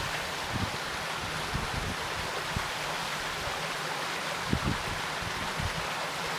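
Valley stream water flowing in a steady rush, with a few brief low bumps on the microphone.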